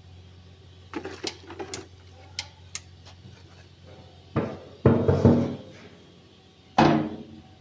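Workshop knocks and clatter: a few sharp clicks, then three louder knocks about four and a half, five and seven seconds in. A low steady hum fades out about three seconds in.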